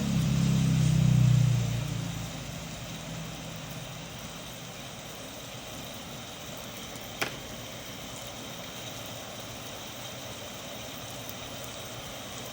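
Thunder rumbling, loudest in the first second or two and then dying away, followed by a steady hiss. A single sharp click about seven seconds in.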